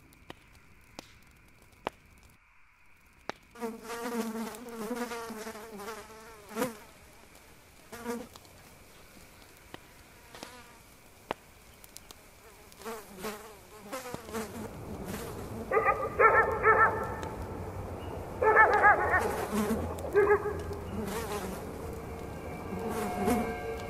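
Insects buzzing, the buzz wavering in pitch and growing louder and thicker from about halfway through, after a few faint ticks in near silence.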